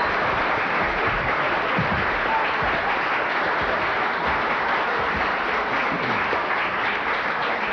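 A large seated audience applauding, a dense, steady clapping.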